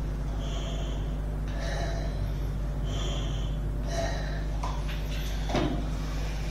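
Manual resuscitator bag (bag-valve mask) squeezed and released twice, giving short breathy puffs of air through the mask as rescue breaths during CPR, over a steady low hum. A brief knock about five and a half seconds in.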